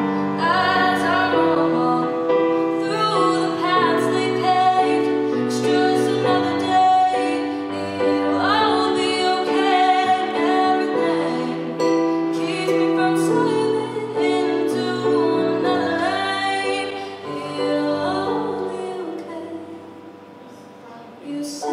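A woman singing a slow song live over Yamaha keyboard piano. The music grows quieter about three-quarters of the way through, then swells again at the very end.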